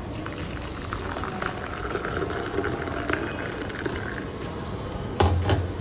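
Hot water poured in a stream onto instant coffee granules in a mug, splashing and frothing as the mug fills. A short, loud thump comes near the end.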